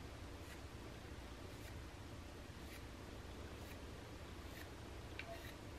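Black permanent marker drawn in quick diagonal strokes across the cast iron sole of a Stanley Bailey No. 4 hand plane, a faint stroke about every second. The marking is a reference for checking, with further flattening passes, that the sole is flat.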